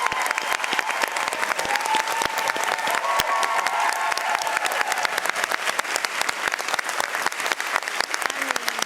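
Studio audience applauding steadily, a dense run of many hands clapping.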